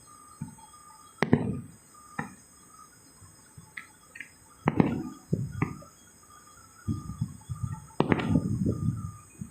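A series of irregular knocks and clattering impacts, about five or six sharp hits a second or so apart, each dying away quickly.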